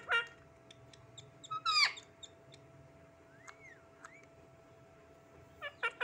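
Indian ringneck parakeet squawking: a short call at the start, one loud, sharp squawk about two seconds in, then a few quiet chirps and two soft rising-and-falling whistles, and a quick run of squawks near the end. A faint steady hum lies underneath.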